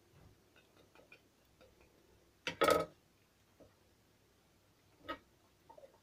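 Scattered faint clicks of hands working raw chicken, with one loud short clack about two and a half seconds in as a steel kitchen knife is set down on a granite countertop, and a smaller knock about five seconds in.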